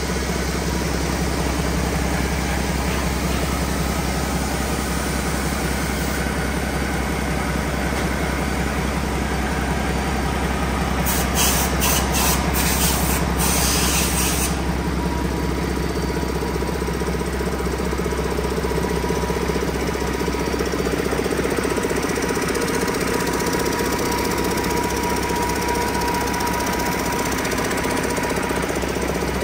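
2022 PACCAR MX-13 inline-six diesel engine idling steadily. A few short hisses come about eleven seconds in, the last one lasting about a second.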